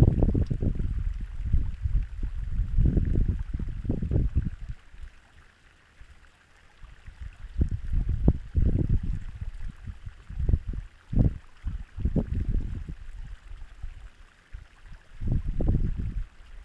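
Wind buffeting the microphone in uneven gusts of low rumble, dying down for a moment about six seconds in before picking up again.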